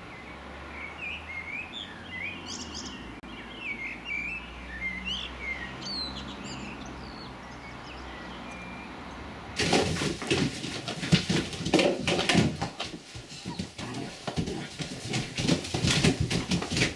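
Small birds chirping against a low steady hum. About ten seconds in it changes to a louder, dense scuffling of Irish Wolfhound puppies' paws on a plastic floor sheet as they tussle and play.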